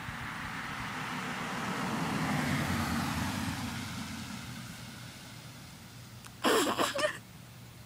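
A car driving past on the road: its engine and tyre noise rises, peaks about two and a half seconds in, then fades away. About six and a half seconds in there is a short, loud burst lasting about half a second.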